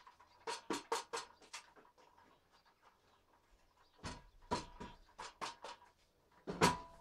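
Short, sharp scraping and knocking strokes as packed sawdust is pushed out of the blocked dust outlet of a Makita circular saw, with the vacuum switched off. The strokes come in a quick cluster, then a pause, then another cluster, with the loudest knock near the end.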